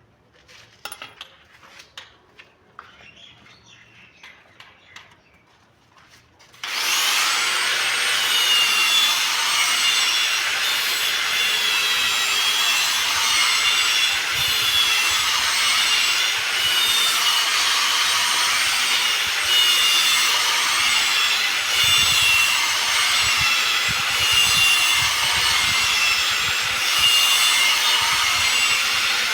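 A few light handling clicks and taps, then about seven seconds in an electric power tool starts abruptly and runs steadily on stone, grinding or polishing it, with a high whine that wavers slightly as it works.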